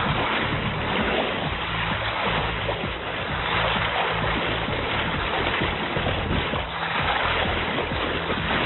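Water rushing and splashing along the hull of a Contest 29 sailboat under way at speed, with background music playing over it.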